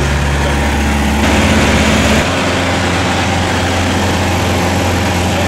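Piper PA-28's piston engine and propeller droning steadily in cruise, heard from inside the cabin, with rushing airflow noise. The tone shifts abruptly about two seconds in.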